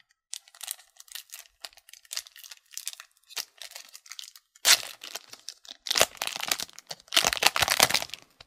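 Foil wrapper of an Upper Deck Tim Hortons hockey card pack crinkling and tearing open. Light rustling of handled cards comes first, then three loud crinkling tears, the last and longest near the end.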